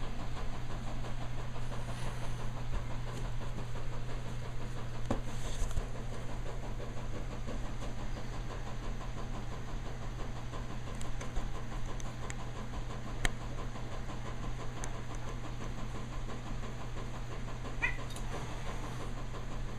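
A steady low hum of room noise, with a few faint knocks and rustles now and then.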